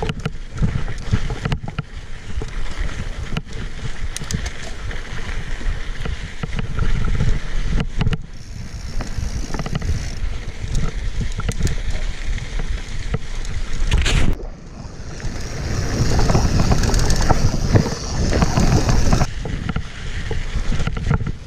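Canyon Exceed CF SLX mountain bike rolling over a dirt and volcanic-gravel track: knobby tyres crunching on the grit, the bike rattling, and wind buffeting the handlebar-mounted microphone. About two-thirds of the way through the noise drops for a moment, then comes back louder and hissier for several seconds.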